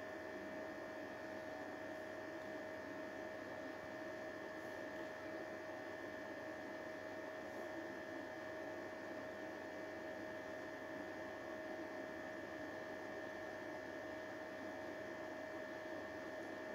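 Steady electrical hum with two high, unchanging whining tones on top of a faint hiss.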